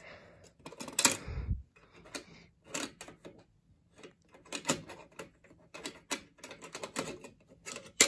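Irregular clicks and light taps of a hand handling the printer cover on the front panel of a Sage ENDEC emergency alert unit. A duller knock comes about a second in.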